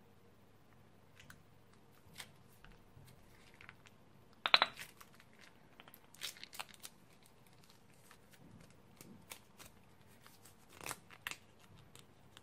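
Slime being squeezed out of a plastic piping bag: scattered small pops and crackles of air and slime leaving the tip, with a louder cluster of pops about four and a half seconds in and more near the end.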